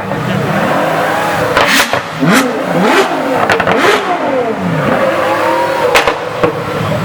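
Car engines revving hard again and again, the pitch rising and falling in quick sweeps that overlap, with a few sharp cracks from the exhausts, one about a second and a half to two seconds in and another about six seconds in.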